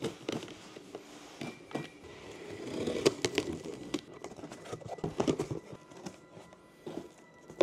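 A utility knife slicing packing tape on a cardboard box, then the cardboard flaps pulled open with rustling, scraping and a few light knocks.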